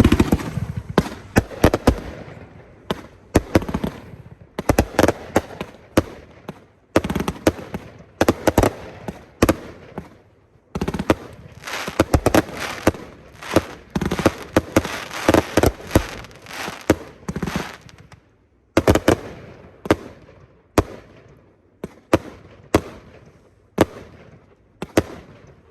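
Two consumer fireworks, Jampacked and Exploding Stars, fired together: a rapid string of launch thumps and aerial bangs with crackle, thinning to single bangs about one a second near the end.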